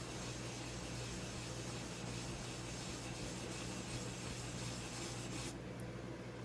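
Briar pipe rim being sanded by hand on 400-grit sandpaper to flatten out charring: a steady rubbing hiss that stops suddenly about five and a half seconds in, over a low steady hum.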